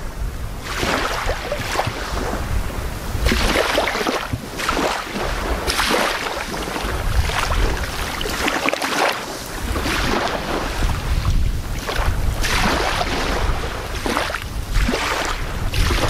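Small waves lapping and washing onto a sandy beach in shallow, calm water, swelling and fading every second or two. A low rumble of wind on the microphone runs underneath.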